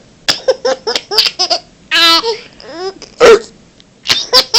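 Laughter in a string of quick, short, high-pitched bursts, with one longer squeal about two seconds in.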